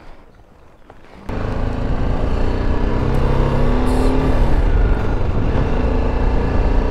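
BMW G310GS single-cylinder motorcycle under way, engine running under wind noise; it comes in suddenly about a second in after a quieter moment, and the engine note climbs as the bike picks up speed.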